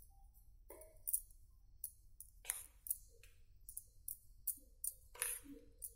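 Steel spoon clicking and scraping against a steel bowl while stirring semolina into buttermilk for rava idli batter. The clicks are faint, sharp and irregular, starting about a second in, with two longer scrapes midway and near the end.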